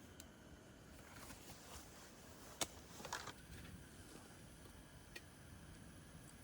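Faint, steady background with a few light clicks, the sharpest about two and a half seconds in and a short cluster just after.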